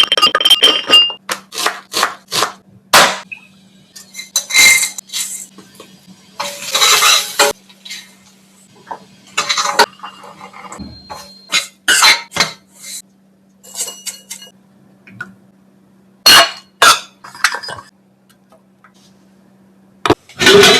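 Metal kitchen utensils clinking and knocking against pans and bowls in quick, irregular strikes, some leaving a short metallic ring, with a few noisy bursts of about a second each. A faint steady low hum runs underneath and stops near the end.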